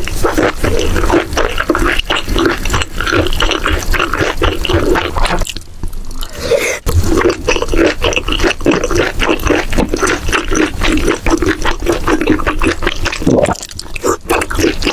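Close-miked wet chewing and mouth smacking: a dense run of squelches and crackles, pausing briefly about five and a half seconds in and again near the end.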